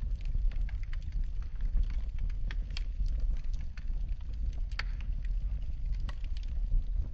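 Wood fire burning in a fireplace: a steady low rumble with frequent irregular crackles and pops, the sharpest about a third and two thirds of the way through.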